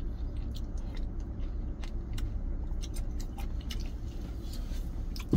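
Close mouth sounds of eating a spoonful of corn soup: scattered small clicks and smacks of chewing and swallowing, over a steady low hum.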